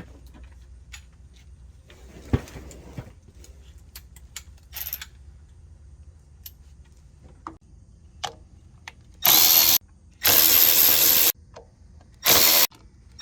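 Power drill running in three short bursts in the second half, spinning out the small 7 mm and 8 mm bolts that hold the air cleaner cover on a Briggs & Stratton E450 mower engine. Before that there are quiet clicks of tools being handled.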